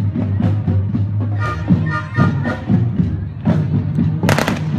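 Marching band drums beating a steady cadence over a low hum, with a few brief horn notes about a second and a half in and a fast rattle of sharp cracks near the end.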